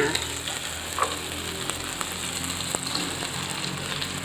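Ground galangal spice paste sizzling steadily in hot oil in a frying pan as the fried fish goes in, with a few light ticks of a utensil against the pan.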